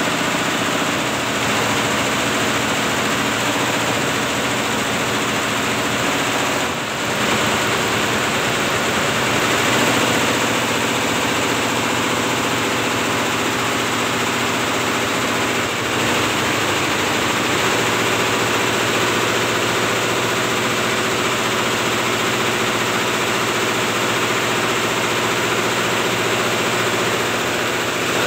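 Multi-head computerised embroidery machine running, its needle heads stitching together in a dense, steady mechanical noise with a constant hum beneath it.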